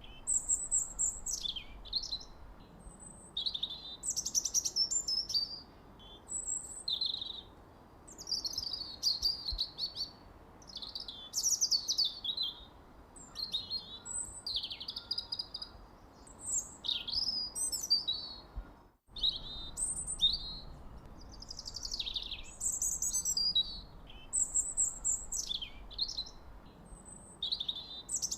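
Songbirds chirping and singing without pause: high-pitched chirps, falling whistled sweeps and short trills overlapping, with a brief break in the sound about two-thirds of the way through.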